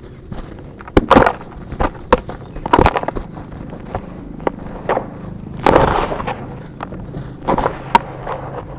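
Clumps of red dirt being crushed and crumbled, in a string of irregular crunches and crackles with a longer, louder crunch just before the sixth second.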